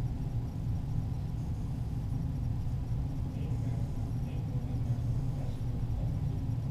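Steady low background rumble, with no gunshots.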